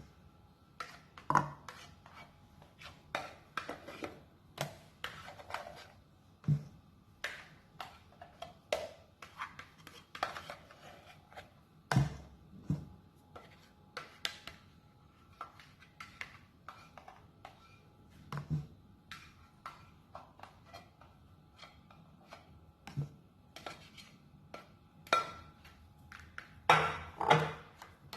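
A spatula or whisk knocking and scraping against a mixing bowl in irregular clicks and taps, one or two a second, while batter is worked.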